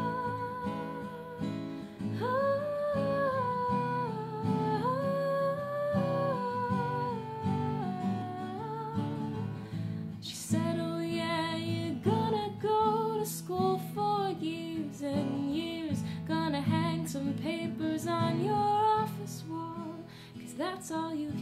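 Acoustic guitar strummed in standard tuning, with a woman's voice singing a melody over it: long held notes at first, then quicker wavering notes from about ten seconds in.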